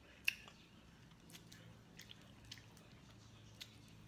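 Close-miked eating: a sharp click about a third of a second in, then a few softer, wet mouth clicks of chewing spread through the rest.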